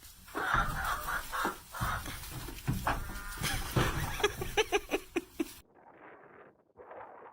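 Farm animals calling, with goat-like and chicken-like calls mixed with knocks, for about five seconds; then the sound cuts off suddenly into a quieter, duller-sounding stretch of animal noise.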